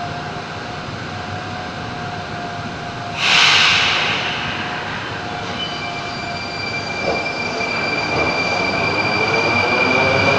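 Moscow Metro train pulling out of a station: a sudden burst of air hiss about three seconds in, then a whine from its traction motors that rises in pitch and grows louder as it picks up speed.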